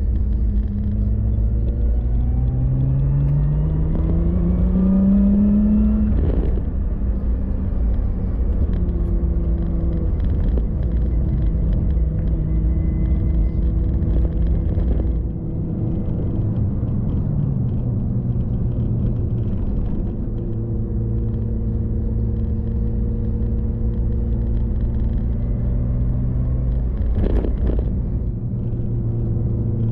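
Car engine and road rumble heard while driving: the engine note rises as the car accelerates, a gear change comes about six seconds in, and then it cruises at a steady pitch with another shift near the end.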